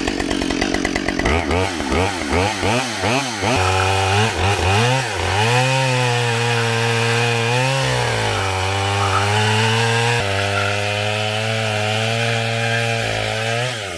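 Husqvarna 572XP 72 cc two-stroke chainsaw with a 28-inch bar and Oregon RD ripping chain. It runs low at first, is revved up and down several times, then is held at high revs ripping lengthwise along a log (freehand chainsaw milling). Its pitch sags briefly a couple of times under the load of the cut.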